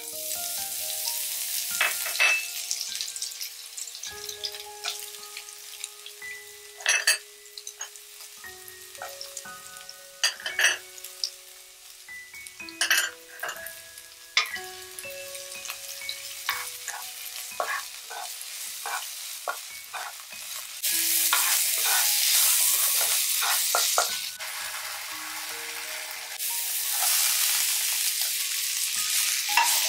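Oil sizzling in a wok as aromatics and then vegetables stir-fry, with a wooden spatula knocking and scraping against the pan now and then. The sizzling grows louder twice in the last third.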